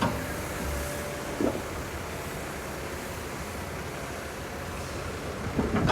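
Heavy diesel construction machinery running at a steady rumble, with wind on the microphone. A faint steady whine in the first second and a half and a few short clanks, one near the start, one about a second and a half in and a couple near the end.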